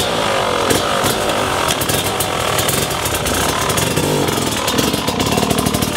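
Enduro motorcycle engine revving hard, its pitch rising and falling with the throttle.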